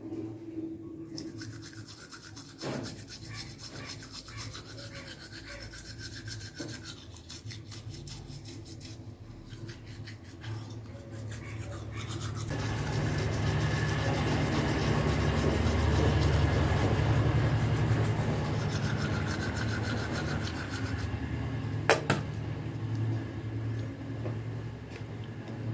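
Toothbrush bristles scrubbing rapidly back and forth, getting louder about halfway through, with a single sharp click near the end.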